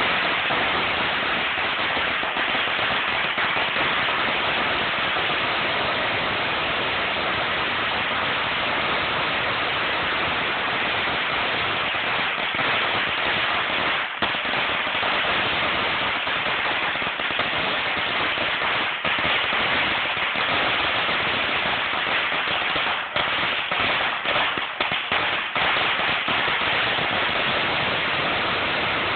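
A very long string of firecrackers going off in one continuous dense crackle of rapid bangs, with a few brief faltering gaps near the end.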